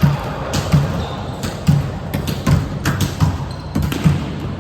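A ball bouncing repeatedly on a hard indoor court floor, a low thud roughly every three-quarters of a second, with scattered sharp clicks over it.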